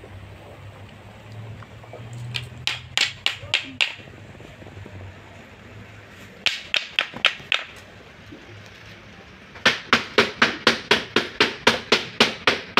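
Wooden sticks struck in quick runs of sharp clacks, about four or five a second, as ritual percussion. There is a short run about two seconds in and another around six and a half seconds, then a longer, steady run from about ten seconds in.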